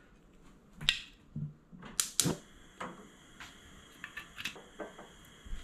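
A gas cooktop burner is turned on and lit under a stainless steel frying pan with a few sharp clicks and knocks. From about two seconds in, the gas flame burns with a steady hiss, and a few lighter taps and clicks follow.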